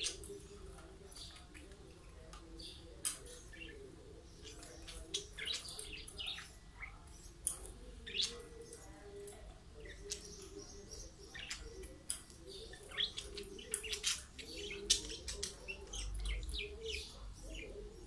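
Budgerigars chirping and chattering: many short, sharp chirps at irregular intervals.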